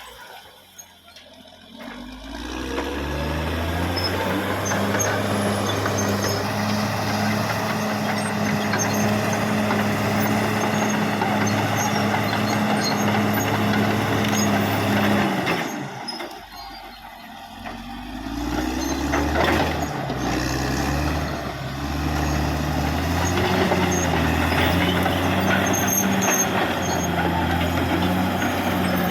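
Caterpillar D6R XL bulldozer's diesel engine running under working load, its pitch shifting up and down as it works. The sound drops away briefly twice, near the start and about midway.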